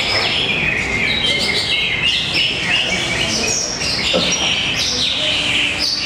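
Many caged green leafbirds (cucak ijo) singing at once in a song contest: a dense, unbroken tangle of fast, high, overlapping chirps and whistled phrases.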